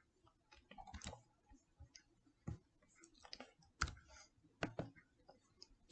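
Faint, irregular clicks of computer keys being pressed, in small clusters with pauses between them.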